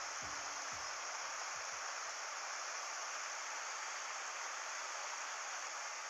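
Mountain stream running steadily over stones and a small cascade, an even rushing hiss of water. A few low music notes die away in the first two seconds.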